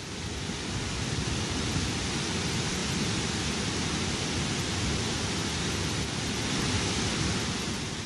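A steady rushing noise, even across high and low pitches, that swells in over the first second and then holds level.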